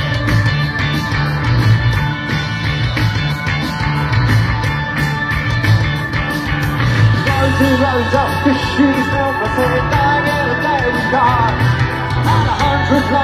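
Live rock band playing loud through the PA, recorded from within the crowd: a steady drumbeat and heavy bass, with a melody line coming in about seven seconds in.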